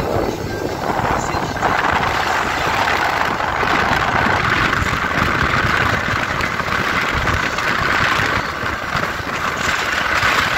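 Small motorboat under way: its engine running steadily under a continuous rushing noise.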